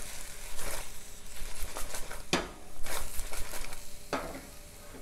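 Cut green beans tossed in a stainless-steel pot by shaking the pot, the beans sliding and rattling against the metal in several bursts, with sizzling of the butter they are cooking in.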